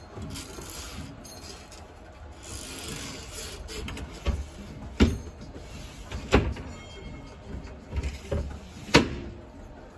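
Inside a tram's driver's cab: a steady low rumble with about six sharp clunks, starting about four seconds in, the loudest three coming at intervals of a second or so.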